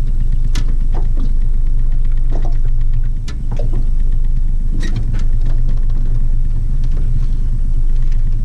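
Boat motor running steadily at trolling speed, a low even drone, with a few sharp knocks and clatter scattered over it.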